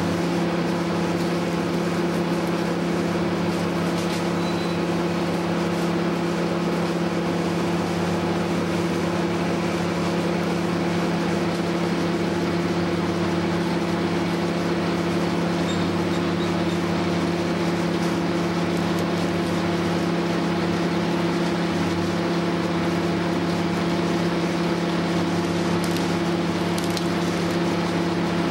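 Wood chipper running steadily at a constant engine speed, with faint crackles of wood going through it.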